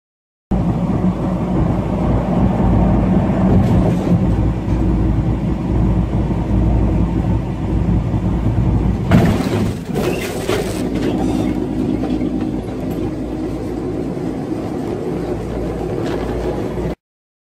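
Semi-truck cab interior: diesel engine and road noise running as a steady low rumble. About nine seconds in there is a sudden loud burst of noise and clatter, then a lower drone as the truck leans over onto its side.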